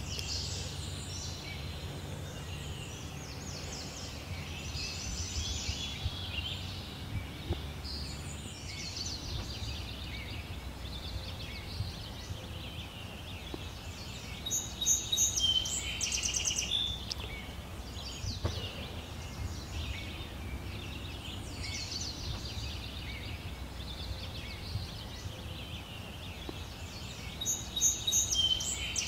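Songbirds singing in a morning chorus, many short varied calls, with louder bursts of song about halfway through and again near the end, over a steady low rumble.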